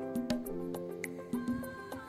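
Background music: held chords that change every half second or so, with a light tick about once a second.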